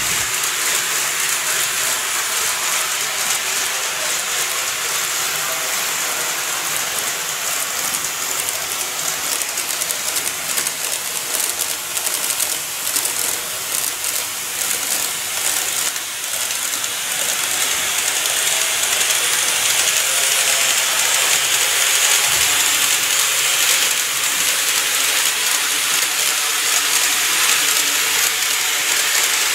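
N-gauge model of a Keikyu New 1000 series electric train running along plastic viaduct track: a steady rolling whir from its wheels and motor, with quick clicking as the wheels cross the rail joints. It grows louder about two-thirds of the way through as the train passes close by.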